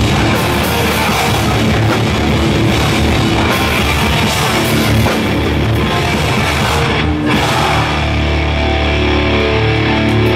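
Live hardcore punk band playing loud and fast, with distorted electric guitars and a drum kit. About seven seconds in the band breaks off for a moment, and then held guitar chords ring on.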